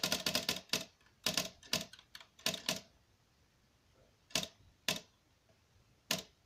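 Smith Corona electric typewriter keys striking: a fast run of keystrokes in the first second, several more over the next two seconds, then single strokes spaced a second or so apart.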